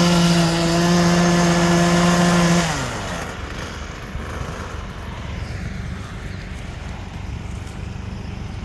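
Small engine of a Husqvarna handheld power tool, used for power-raking gravel out of a lawn, running at high steady revs; about two and a half seconds in the throttle is let off and the revs fall away quickly to a lower, steady hum.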